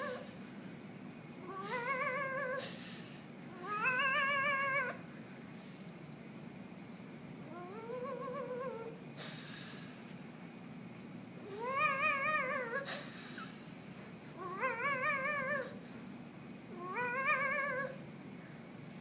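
Domestic cat meowing six times, long drawn-out calls a few seconds apart, each rising in pitch and then held with a wavering pitch.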